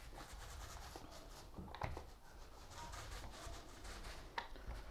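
Faint soft hiss of a paint roller rolling paint across a flat wooden cabinet door, with a couple of light clicks.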